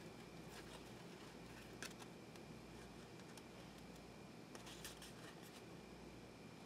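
Faint hand-shuffling of a tarot deck, with soft clicks and slides of the cards, against near silence. The clearest clicks come about two seconds in and again near five seconds.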